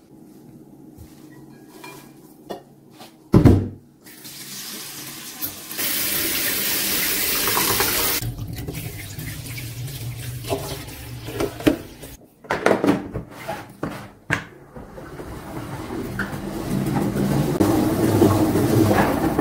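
Kitchen tap running onto fresh parsley, mint and dill in a bowl while hands rinse the herbs, with a single loud thump about three seconds in. Near the end a plastic salad spinner whirs, spinning the washed herbs dry.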